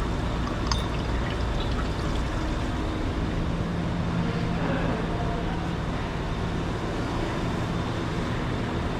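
Engine oil pouring in a steady stream from the oil pan's drain hole into a drain pan.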